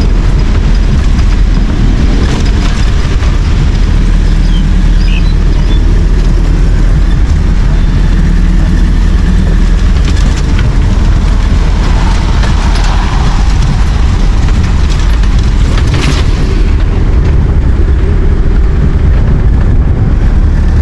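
Loud, steady low rumble of an engine running, with no change in pace.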